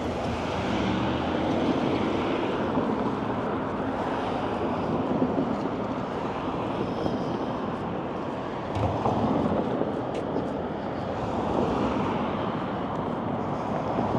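Road traffic going by, a steady rush of car engines and tyre noise that swells as several vehicles pass.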